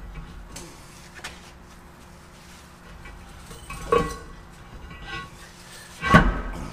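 Heavy steel parts clanking and knocking while a truck's brake drum is worked onto the axle hub: a few light knocks, then two loud ringing clanks, about four seconds in and near the end, the last with a deep thump.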